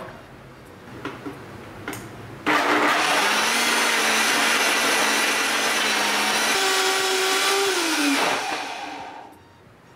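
Countertop blender starting suddenly about two and a half seconds in, crushing ice cubes in mango concentrate. The motor runs loud and steady for about six seconds, its pitch rising about two-thirds of the way through, then winds down and stops.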